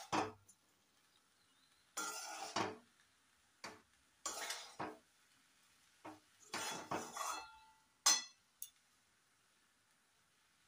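A spatula scraping and clinking against a metal kadai as it stirs flattened-rice pilaf, in about six short bouts of strokes that stop about eight and a half seconds in.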